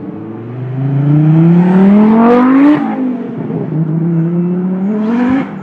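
Tuned turbocharged Ford Focus RS engine pulling hard under acceleration. The note climbs for about two seconds, drops at a gear change, climbs again, then cuts off abruptly near the end with a brief burst of hiss as the throttle closes.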